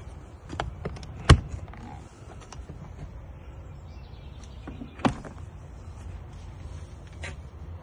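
Caravan entry door being unlatched and opened: a few small clicks, then a sharp latch click about a second in and another knock about five seconds in, over a low rumble of wind on the microphone.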